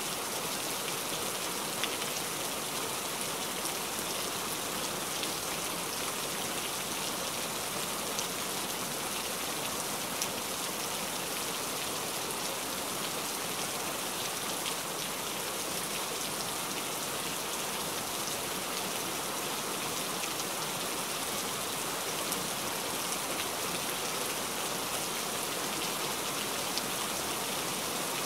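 Steady rain falling, with a few sharper drop ticks now and then.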